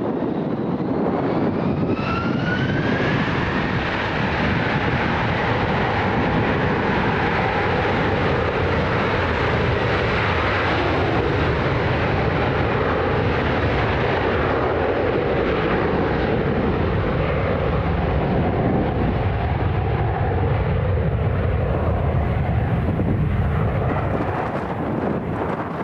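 American Airlines Airbus A321 jet engines at takeoff power, a loud steady rumble with a rising whine about two seconds in.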